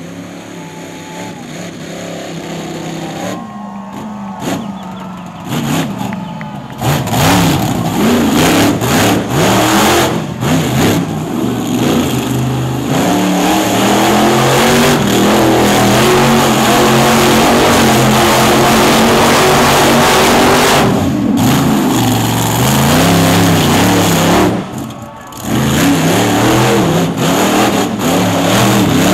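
Maximum Destruction monster truck's engine, running lower at first, then revving hard from about seven seconds in and held at high revs with the pitch wavering up and down. It drops off briefly near the end before revving up again.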